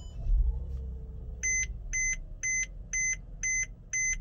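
Mercedes-Benz GLK350 instrument-cluster warning chime beeping steadily about twice a second, starting about a second and a half in, as the ignition is switched on. Just before it comes a low thud and rumble.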